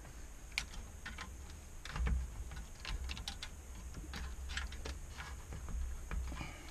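Irregular light clicks and ticks of hands handling wires and small parts on an LCD monitor's circuit board, over a low steady hum.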